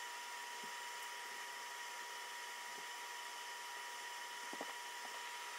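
Quiet steady background hiss with a thin, constant high tone, and a few faint ticks.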